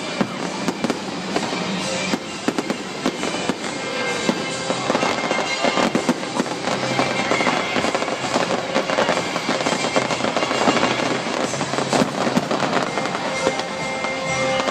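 Fireworks display going off continuously: a dense run of bangs and crackling, with music playing underneath.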